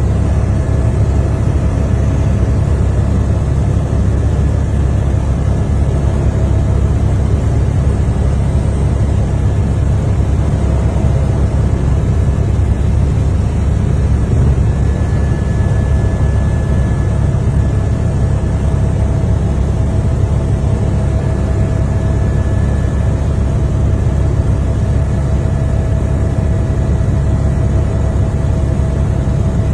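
Aircraft engine noise heard from inside the cabin: a steady, unbroken low rumble with a faint hum above it.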